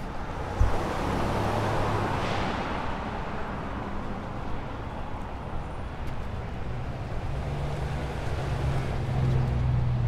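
Street traffic: a car passes close, its tyre and engine noise swelling and fading about two seconds in. A short thump comes just after the start, and a vehicle's low engine hum comes in over the last few seconds.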